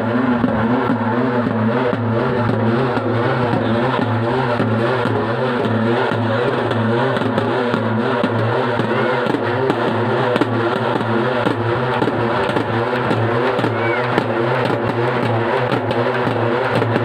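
Double-headed barrel drums beaten with sticks in a fast, continuous, driving rhythm, dense and loud throughout.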